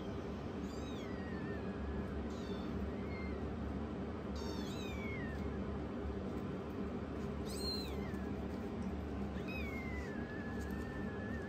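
Young kittens mewing while play-fighting: several high-pitched mews, some short, some sliding down in pitch, the last one drawn out near the end.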